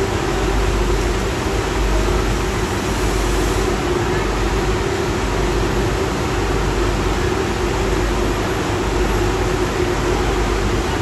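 Steady machinery drone on a docked car ferry's enclosed vehicle deck: an even hum over a low rumble, with no change in pace.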